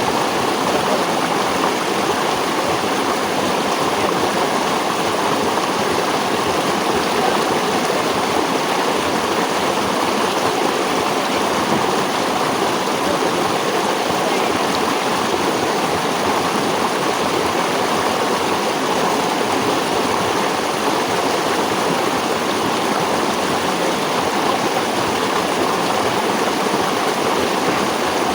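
Running water of a stream, a steady even rush that doesn't change.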